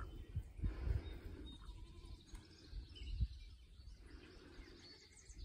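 Rural outdoor ambience: faint bird chirps over an uneven low rumble on the microphone, loudest in the first second and again about three seconds in.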